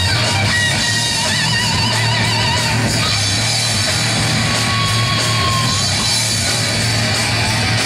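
Old-school heavy metal band playing live: distorted electric guitars, bass guitar and drum kit. A lead line plays wavering held notes over the band, with a long sustained note about halfway through.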